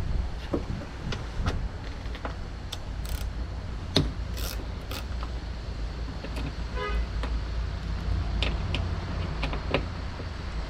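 Irregular metallic clicks and knocks of a hand tool at work on a car door latch as its T30 Torx screws are undone, over a steady low rumble. A brief squeak comes about seven seconds in.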